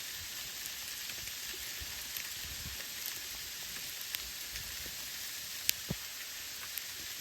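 Sleety snow falling: a steady fine hiss with scattered sharp ticks of ice pellets hitting surfaces.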